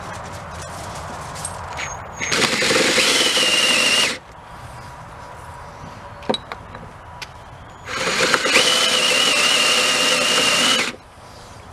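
Cordless drill boring into the underside of an aluminum piston to cut weight out of it: two runs, about two and three seconds long, each with a steady high whine from the motor under load. A few light clicks from the bit and piston fall between the runs.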